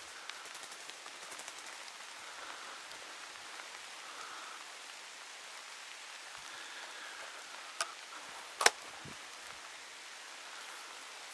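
Steady rain pattering on foliage, then a single shotgun shot late in the stretch with a short low rumble after it: the shot at a hazel grouse, which is brought down. A sharp click comes just under a second before the shot.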